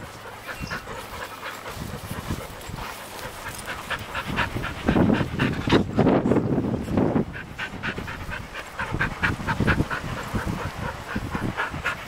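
Dogs panting close by, a quick, rhythmic huffing, with a few louder low rushes around the middle.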